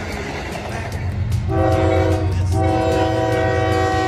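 Diesel locomotive air horn sounding a chord of several notes, a short blast about a second and a half in, then after a brief break a longer blast, over the rumble of a passing train.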